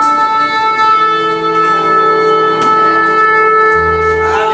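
A shofar blown in one long, loud, steady blast, with a lower tone joining about a second in.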